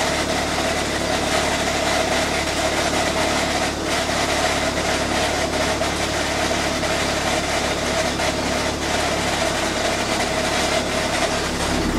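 Chrysler Neon's manual transaxle making a loud, steady grinding noise from the gearbox area over the running engine, with a constant tone running through it that fades near the end. The owner cannot find its cause: the noise has persisted through a replaced transaxle and a new clutch kit including the throwout bearing.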